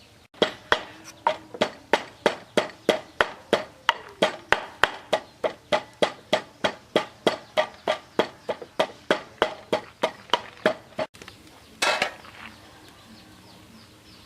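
A kitchen knife chopping vegetables on a cutting board in a steady rhythm, about three strokes a second, for some ten seconds. A short noisy burst follows near the end.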